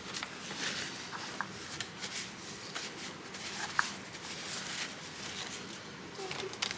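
Hands working suspension parts and tools: scattered light clicks, scrapes and rustling, with a few brief high squeaks.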